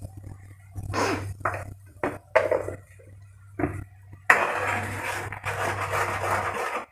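Metal ladle in a steel wok of boiling soy-sugar sauce: a few short clatters, then from about four seconds in a continuous stirring and scraping noise as the sauce is worked while it thickens.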